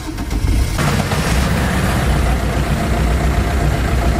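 Maruti Suzuki Ritz VDI's 1.3-litre Fiat Multijet four-cylinder diesel starting up. It catches a little under a second in and settles into a steady idle.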